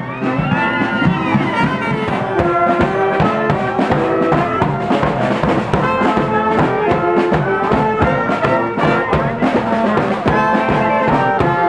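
A saxophone band playing a lively tune, several saxophones in harmony over a steady drum and cymbal beat.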